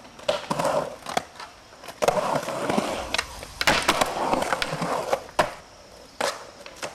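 Skateboard rolling on a concrete bowl: a rough rolling rush of the wheels with sharp clacks as the board and trucks hit the concrete and the coping, about eight in all.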